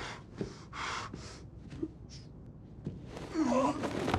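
A wounded man's short, ragged gasping breaths, one after another, with a knife lodged in his chest. Near the end comes a voiced, wavering groan.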